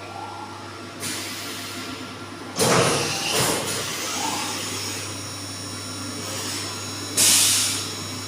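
Doosan 4-axis CNC milling machine running a program: a steady hum with rushing noise, broken by two loud hissing bursts, one about two and a half seconds in and one near the end.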